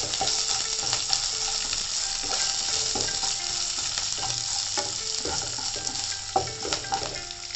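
A tempering of mustard seeds, dals, roasted chickpeas, ginger and chillies sizzling steadily in hot oil in a nonstick kadai. It is being stirred with a spatula that scrapes and taps against the pan in frequent short strokes.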